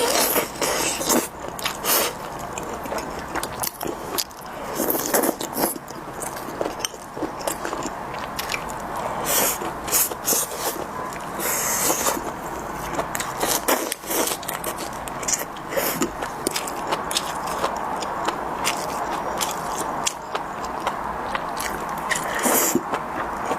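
Close-miked eating: chewing and biting, with irregular sharp clicks and scrapes.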